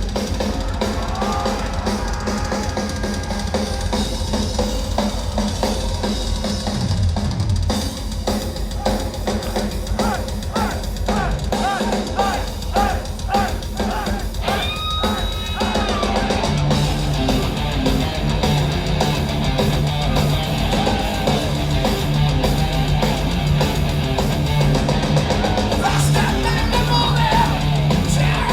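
A live heavy metal band playing an instrumental intro: fast drum-kit playing with bass drum and snare. About halfway through, electric guitars and bass guitar settle into a steady, driving riff.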